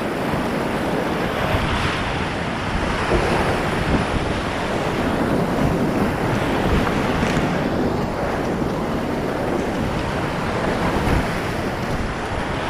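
Whitewater rapid rushing and splashing around a kayak, heard from the boat: a loud, steady churn of white water.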